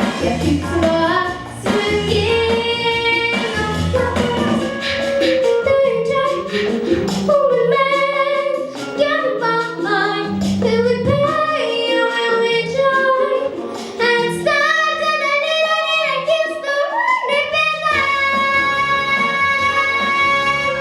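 A young girl singing a song solo over an instrumental backing track, ending on a long held note.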